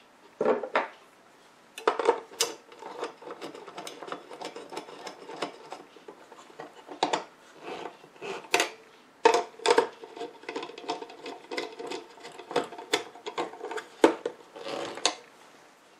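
Irregular clicks, scrapes and rattles of a small metal nut being turned with a hand nut starter on the meter's hardware, with a faint metallic ring behind them.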